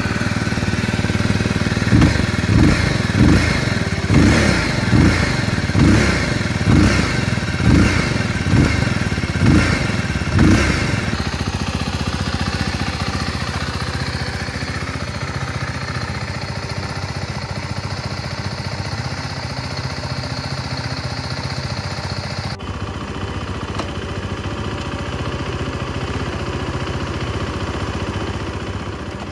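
Beta Alp 4.0 motorcycle's single-cylinder four-stroke engine running on its first start, blipped about ten times in quick succession, each rev rising and falling, then settling to a steady idle.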